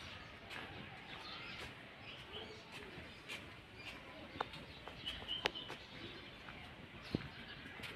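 Birds chirping faintly here and there, with a few sharp clicks.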